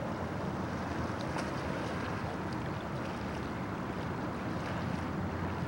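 Steady wind rushing over the microphone, with water lapping on open water.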